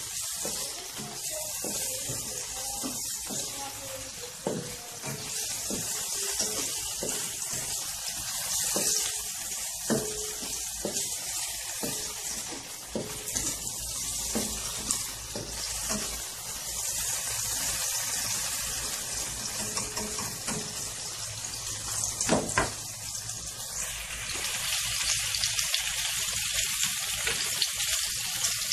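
Garlic, onion and tomato sautéing in hot oil in a nonstick wok: steady sizzling, with a spatula scraping and knocking against the pan now and then. About 24 seconds in the sizzle grows fuller and louder.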